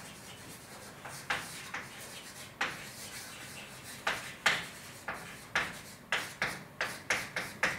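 A series of short scrapes and taps, a few spread out at first, then coming faster, about three a second, over the last few seconds.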